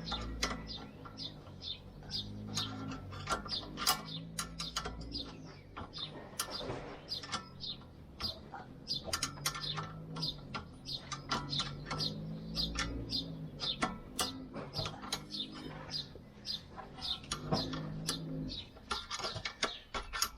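Irregular sharp clicks and taps of hand tools on metal while brake parts are refitted, with a pigeon cooing in the background several times.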